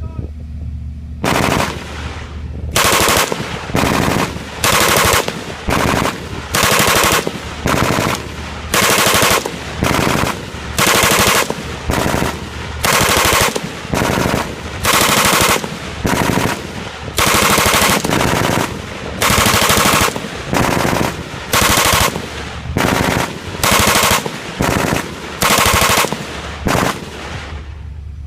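Two M249 5.56 mm light machine guns firing short bursts in turn, trading fire back and forth about once a second ('talking guns'). The first burst comes about a second in.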